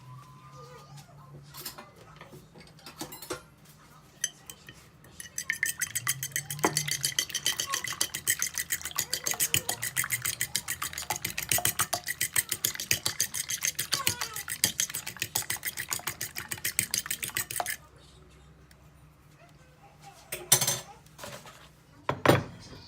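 Eggs being beaten in a bowl: a utensil clicks rapidly and evenly against the bowl for about twelve seconds, starting about five seconds in. A couple of separate knocks near the end.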